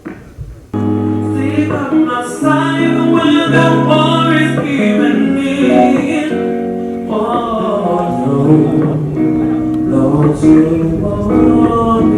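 A song: a singing voice over sustained chords, starting suddenly about a second in.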